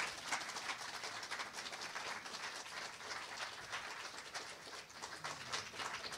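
Audience applauding: a steady crackle of many people clapping.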